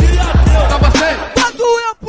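Funk carioca (baile funk) music: heavy bass under vocal samples, which switches about 1.4 s in to a chopped, stuttering vocal sample repeated in quick hits.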